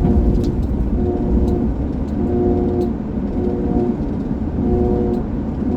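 Inside a 2004 Jeep Grand Cherokee on the move: steady road rumble, with a drivetrain whine that swells and fades about once a second as the gas is tapped. It is the noise that began after the front differential fluid was changed. The owner notes the differential is overfilled but doubts that causes it.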